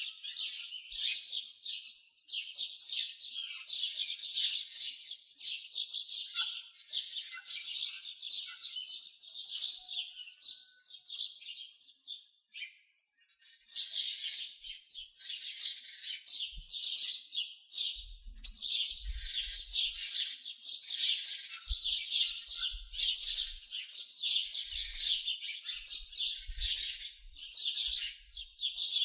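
A chorus of many small birds chirping and twittering in dense, rapid calls. The birdsong drops out briefly about halfway through, then resumes. Soft low thumps come in now and then in the second half.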